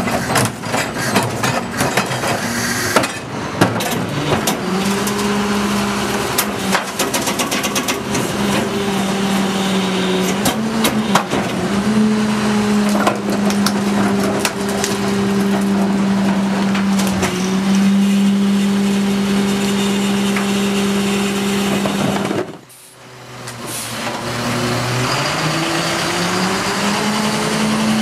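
Heil 5000 rear-loader garbage truck collecting: trash cans bang and clatter against the hopper as they are dumped. Then the truck's engine holds a steady raised drone for many seconds while the hydraulic packer compacts the load. Near the end there is a short drop, then the engine note rises as the truck pulls away.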